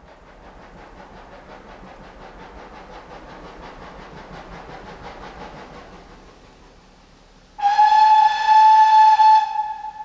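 Steam locomotive 4930 'Hagley Hall', a GWR Hall class 4-6-0, working towards the crossing with a steady beat of exhaust chuffs that grows slowly louder. Near the end comes one long blast on its single-toned whistle, much louder than the chuffing.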